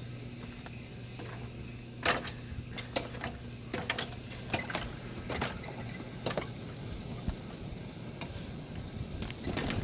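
Irregular clanks and knocks of someone climbing a ladder, hands and boots striking the rungs, over a steady low hum that fades out about halfway through.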